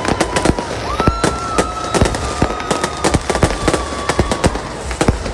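Fireworks going off in a dense, irregular barrage of bangs and crackles. A long, high, steady tone sounds over it from about a second in, sagging slightly in pitch before it fades.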